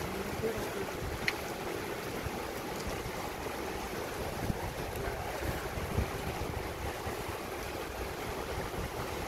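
Steady rush of a shallow mountain stream flowing over rocks and rapids, with a couple of faint brief knocks.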